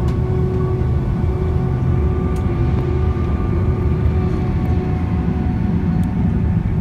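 Cabin sound of a Boeing 767-300 taxiing: the jet engines' steady whine at low power over a constant low rumble. The level stays even throughout.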